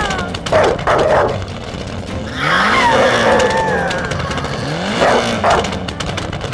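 A dog barking a few times, about half a second in, around a second and again near five and a half seconds, over background music.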